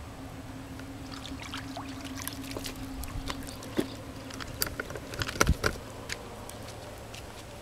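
Light clicks and knocks of footsteps on the stones of a rocky shoreline, with water lapping gently at the rocks. A steady low hum runs for the first three seconds or so, and a thump about five and a half seconds in is the loudest sound.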